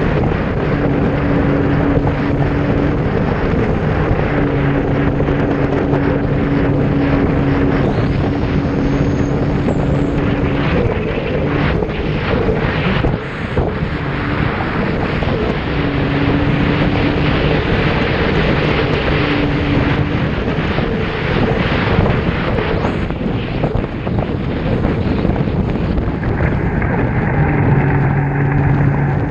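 Jet ski running at speed across open water: a steady engine drone that comes and goes under a loud rush of wind on the microphone and water spray.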